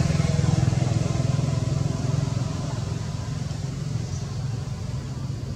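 A motor vehicle's engine running nearby as a low, steady rumble that grows gradually quieter.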